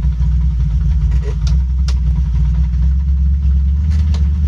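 Rover P6 engine idling with the clutch lifted: a loud, steady low drone, the awful noise the gearbox makes whenever the clutch is up. A few short clicks sound about a second and a half in and again near four seconds.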